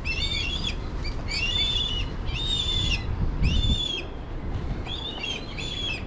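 Black kites calling overhead: repeated high, quavering whistled calls, about one a second, over a low rumbling noise.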